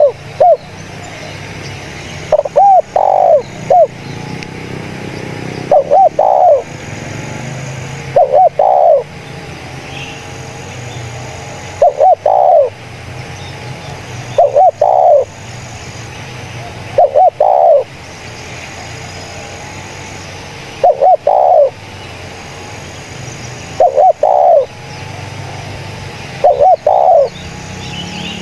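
Spotted dove (tekukur) cooing over and over: a short phrase of a few rounded notes every two to three seconds, over a steady low rumble.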